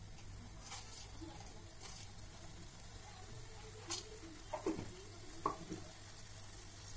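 Fish curry in a metal kadai simmering with a faint sizzle as it comes up to the boil, with a few light clicks and knocks of a spoon against the pan.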